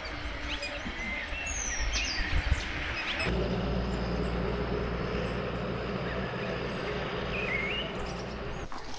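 Outdoor rural ambience with a few short bird chirps. About three seconds in, the background switches suddenly to a steady low rumble.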